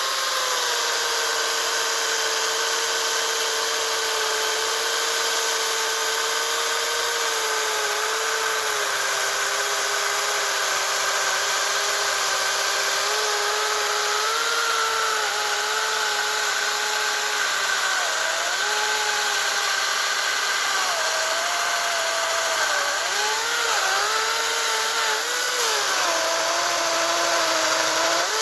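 Makita DUC355 twin-battery cordless chainsaw running through a log. The electric motor and chain give a steady whine that sags slowly in pitch as the saw takes the load, with several sharper dips in the second half as it bogs in the cut.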